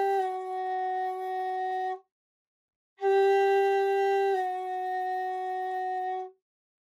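Shakuhachi holding the note Re, then lowered a semitone with the meri technique to give Re no han'on; each note steps down slightly in pitch partway through. Played twice, each note a few seconds long, with a short silence between.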